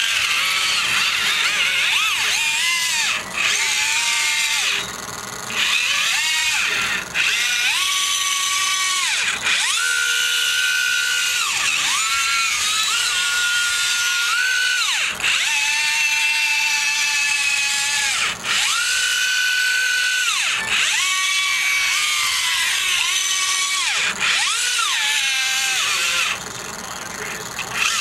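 Whine of a radio-controlled rubber-tracked loader's drive motors and gearing, rising in pitch as it speeds up, holding, then falling as it slows, over and over. It drops to a quieter hum briefly around five seconds in and again near the end.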